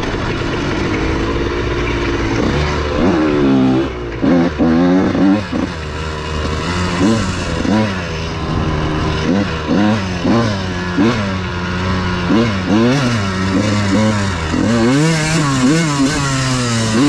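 Dirt bike engine being ridden hard, its pitch rising and falling over and over as the rider works the throttle and shifts.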